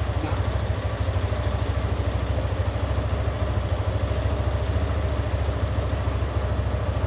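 Yamaha FZ-S motorcycle's single-cylinder engine idling steadily with a fast, even pulse, soon after a start following eight days of standing unused.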